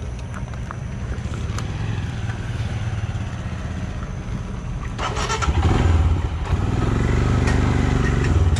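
Royal Enfield Himalayan's single-cylinder engine running as the motorcycle rides off, getting louder about five seconds in as it picks up speed.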